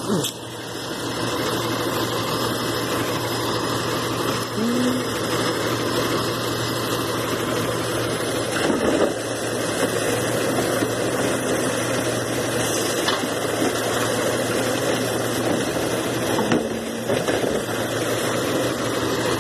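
Garbage truck's engine running at idle: a steady low drone, with a few short faint sounds over it.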